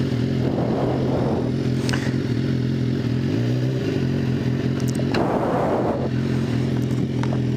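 Inline-four motorcycle engine idling steadily, its note shifting briefly about three and a half seconds in. A short rustling noise comes about five seconds in.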